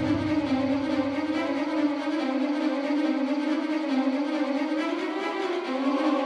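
Background music: sustained string-like tones with a slowly wavering melody line. A low rumble fades out over the first two seconds.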